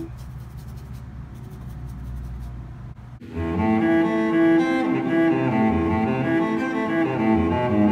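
Background instrumental music: a quiet, low sustained passage, then about three seconds in a louder, busier passage of quick pitched notes begins.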